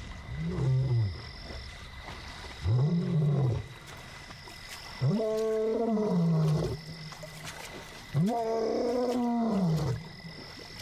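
Young male lion roaring, four calls that rise and fall in pitch, each longer than the last, building into full roars. It is a contact roar, calling for a lost companion. A steady high-pitched tone runs underneath.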